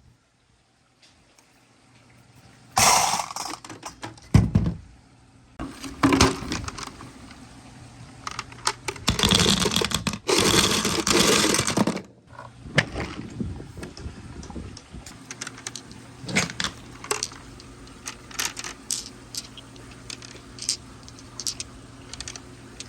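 Marbles rolling and clattering down a handmade marble run: scattered clicks and knocks of balls hitting the track, with a dense rush of many balls rattling together for a few seconds about halfway through.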